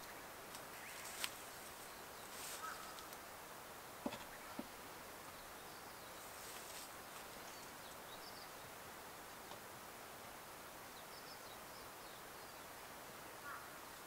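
Faint outdoor quiet with a few light clicks and short rustles from hands working at a wooden beehive and shifting in dry grass, and a few faint high chirps in the background.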